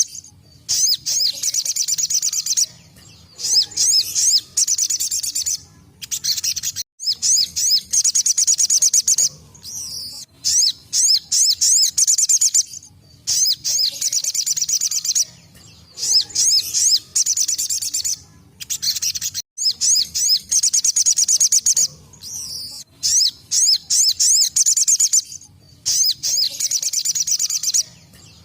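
Sogon (ruby-cheeked sunbird) singing its 'tembakan' song: bursts of very fast, high-pitched trilling, each a second or two long, repeated over and over with short breaks between them.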